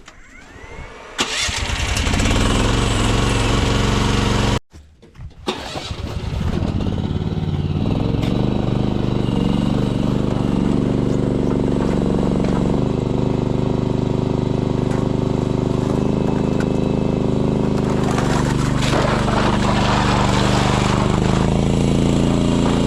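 Mini excavator's Briggs & Stratton engine running loudly. It breaks off for a moment about four and a half seconds in, then rises in speed and holds a steady run.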